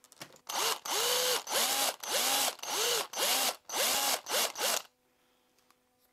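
Handheld power drill run in about eight short bursts, its motor pitch rising as it spins up and falling as each burst is let off, while the bit bores out an eye socket in a wooden lure body.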